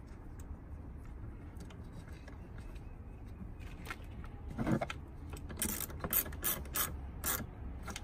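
Ratchet and socket wrench clicking in a quick run of sharp ticks over about two seconds from a little past halfway, as the nut on the negative battery terminal is done up.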